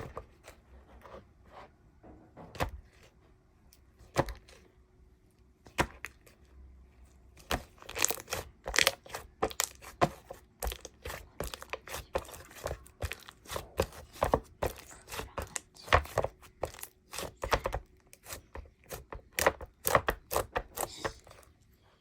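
Slime with soap foam mixed into it being worked by hand, giving irregular sharp popping and crackling, busiest in the second half.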